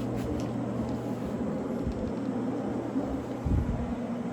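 Rotary floor machine running steadily with a cleaning pad on carpet, its electric motor giving an even hum.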